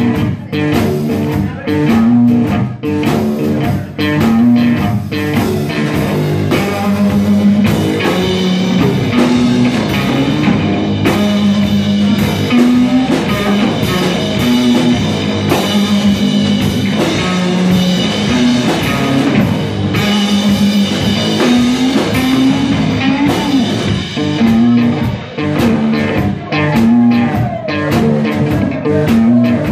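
Live rock-blues band playing an instrumental passage on electric guitar, electric bass guitar and drum kit, with steady drum hits throughout.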